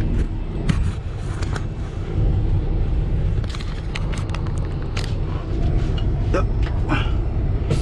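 Kenworth T680 semi truck's PACCAR diesel engine running with a steady low rumble, with scattered clicks and knocks over it.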